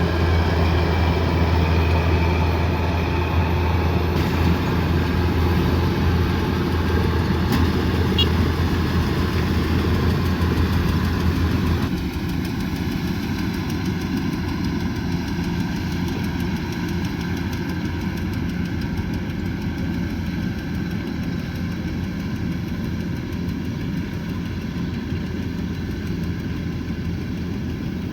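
Kubota combine harvester's engine running steadily with a deep hum. About halfway through it becomes a little quieter and the deep hum weakens.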